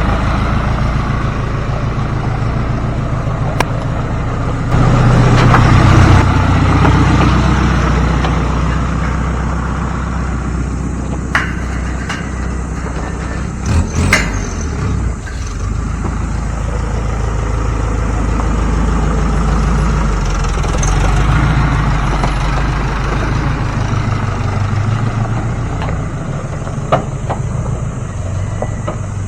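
Heavy diesel construction machinery running, the engine rising in revs about five seconds in and then settling back. A few sharp metallic knocks come through, the loudest about fourteen seconds in.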